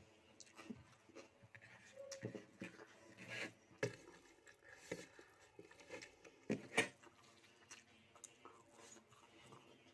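Quiet eating sounds: a person chewing a mouthful of rice and curry, with scattered soft clicks and scrapes and two sharper clicks about four and seven seconds in.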